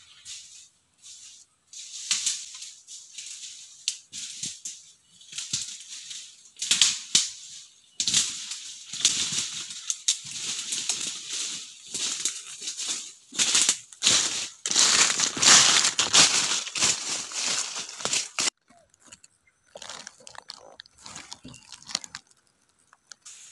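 Dry leaf litter crunching and rustling as someone moves through forest undergrowth, in irregular crackly bursts that grow dense and loud through the middle. It cuts off suddenly about eighteen seconds in, leaving fainter scattered rustles.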